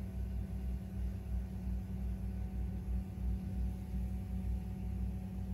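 Steady low hum with a fluttering rumble beneath it, unchanging throughout.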